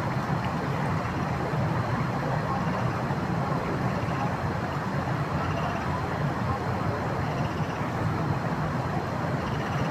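The Dez River flowing, a steady full rushing of water with no breaks.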